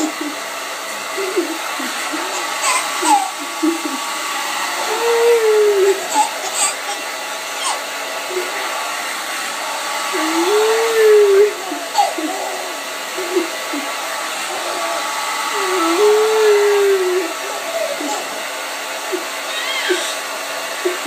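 Hand-held hair dryer running steadily with a steady hum. Over it, a baby's voice makes long rising-and-falling squeals about every five to six seconds, with short laughing sounds in between. The dryer switches off at the very end.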